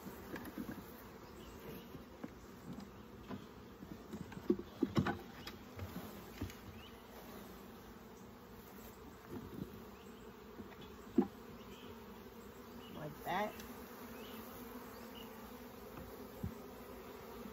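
Steady buzzing hum of a mass of honeybees from a package just shaken into a wooden hive, the bees stirred up from the shake. A few light knocks from the hive being handled, one sharp one about eleven seconds in.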